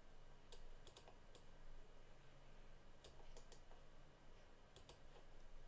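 Faint, scattered clicks of a computer mouse and keyboard, in small clusters of two to four, over quiet room hiss.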